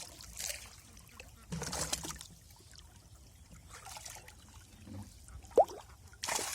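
Water trickling and splashing off a hauled cast net in short spells, with a brief sharp rising squeak a little after five seconds in.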